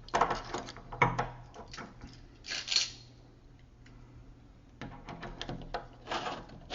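Metal parts of a deadbolt clicking and knocking as the interior lock piece is fitted onto the door and its pin lined up with the bolt. The clicks come in short clusters, at the start and again about five seconds in, with two brief scrapes between.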